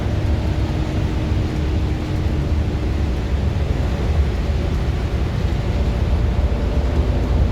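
Heavy rain falling, a steady rushing noise with a deep rumble underneath.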